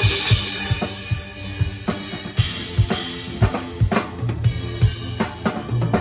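Marching band percussion playing: a quick run of low drum hits and snare strokes with cymbal crashes, over sustained pitched notes. A marimba is struck with mallets close to the microphone.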